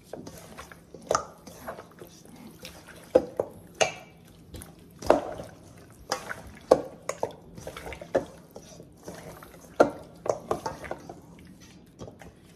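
Gloved hands mixing chopped pork ribs in a thick wet marinade in a stainless steel bowl: irregular wet squelches and clicks, with a few louder knocks of ribs against the bowl.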